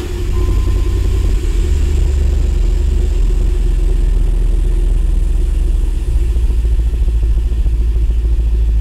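Dodge 5.9 Magnum V8 idling steadily just after being started, heard from inside the cab. The low rumble shifts slightly about six seconds in.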